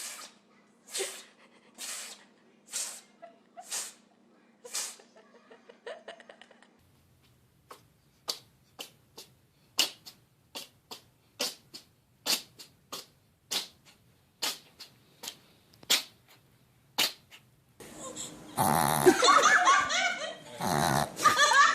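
Animal sneezing over and over in short, sharp sneezes: first about once a second, then a quicker, irregular run of brief sneezes. Near the end comes a louder stretch of pitched, voice-like sounds.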